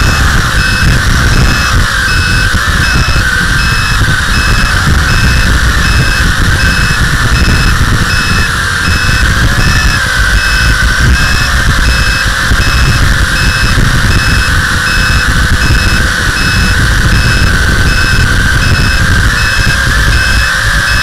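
WLToys V262 quadcopter's motors and propellers whining steadily as heard from the onboard camera, the pitch wavering slightly with throttle changes, over a low rumble of wind on the microphone.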